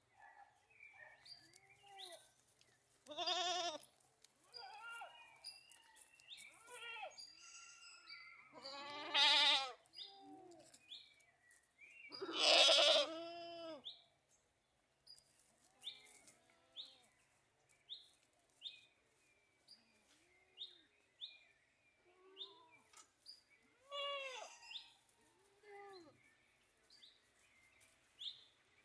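Goats bleating: several drawn-out bleats, the loudest two about a third of the way in, with fainter bleats at other pitches from other goats in between.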